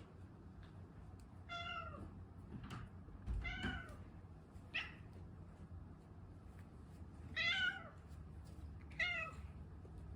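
A house cat meowing about five times, short separate calls a second or two apart, as it begs to be fed before its meal.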